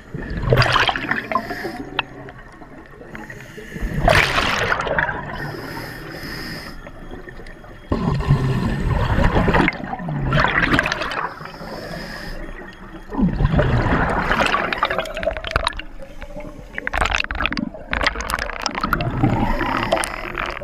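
Scuba diver's regulator underwater: bursts of exhaled bubbles gurgling and rushing past the microphone every few seconds, with a quieter hiss between breaths.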